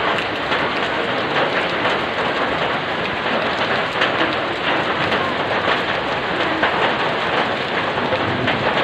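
Heavy rain pouring steadily onto a wet paved street, a dense even hiss of countless splashing drops.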